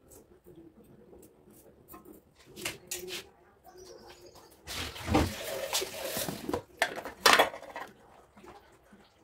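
Steel kitchen utensils being handled on a stone surface: light clinks, then a long scraping stretch and two sharp metal knocks as a plate and lid are set down. A dove cooing and a small bird chirping in the background.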